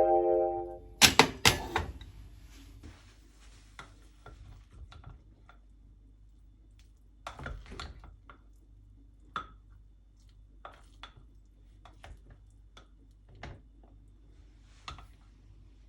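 Kitchen utensils knocking and clinking against cookware and dishes: two louder knocks about a second in, then scattered light clinks.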